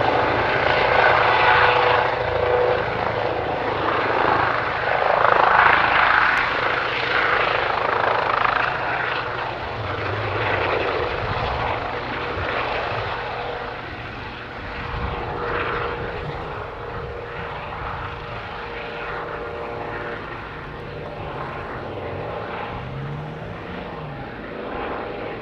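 Helicopter taking off and flying away, its rotor and turbine noise loud at first and fading steadily.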